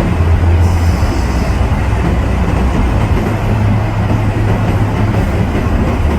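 Steady road noise inside a moving car: tyres rumbling on the road under a low, droning hum.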